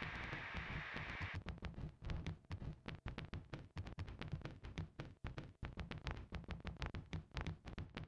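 Faint crackling surface noise of an old-film soundtrack effect: irregular clicks and pops over low uneven thumps, with a hiss that cuts off about a second and a half in.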